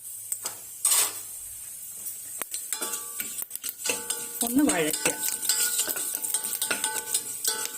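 Whole spices being stirred in hot oil in a pressure cooker, the stirring utensil scraping and knocking against the metal pot, with a light sizzle.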